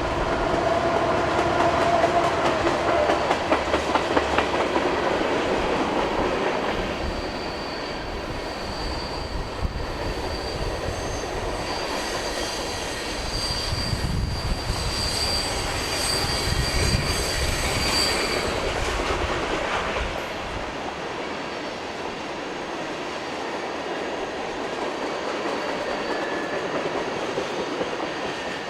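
Freight train cars rolling past on a curve: steel wheels clicking over the rail joints, with a high, steady flange squeal through the middle, the rumble thinning out after about 20 seconds as the train passes.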